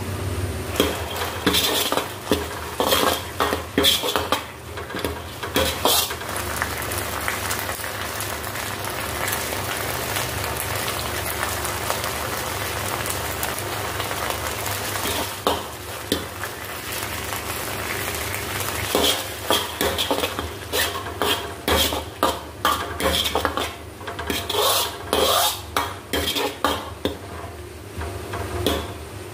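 Sauce and onions sizzling in a hot wok, with a metal ladle stirring and clinking against the wok in two spells: through the first six seconds or so and again through most of the last ten. In between, only the steady sizzle.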